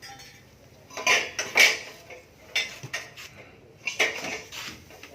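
A handful of short clatters and clinks of hard objects, several in the first two seconds and another about four seconds in.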